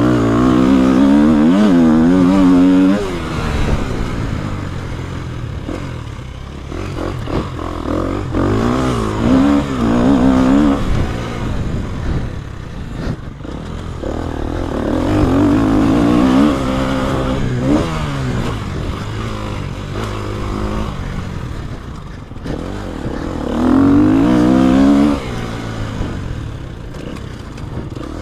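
KTM EXC-F 250 four-stroke single-cylinder dirt bike engine riding an enduro track: it revs up hard in several loud bursts and drops back between them as the rider opens and closes the throttle.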